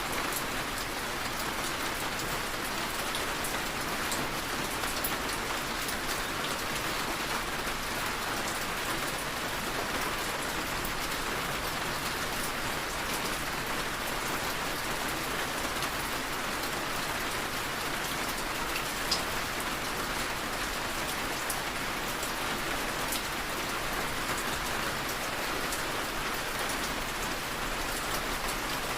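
Steady rain falling and pattering on a window, a constant hiss with scattered fine drop taps.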